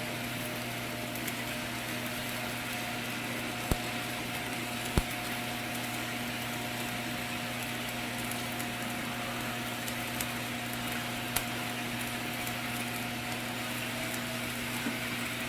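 Stick-electrode arc welding: the arc crackling and hissing steadily over a low electrical hum, with a few sharp ticks.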